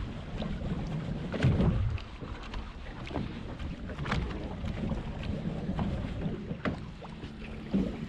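Low rumble of wind and water on a small fishing boat at sea, with scattered sharp knocks and clicks, a few seconds apart.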